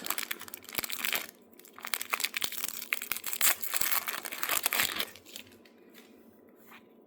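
Wrapper of a Topps Series 1 baseball card pack crinkling and tearing as it is opened by hand. It comes in two spells, a short one and then a longer one, and stops about five seconds in, with a couple of faint clicks after.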